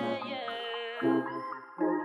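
Background music: held melodic notes that glide in pitch, with deep bass notes coming in about a second in and again near the end.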